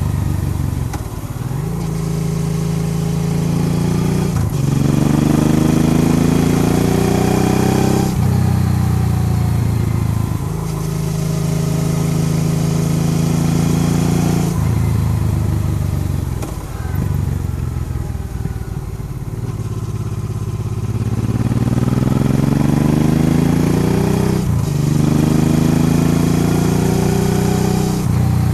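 Honda Transalp XL650V's V-twin engine under way, accelerating through the gears: the pitch climbs and drops back at each upshift, about six times. Twice it eases off the throttle, with the pitch falling slowly.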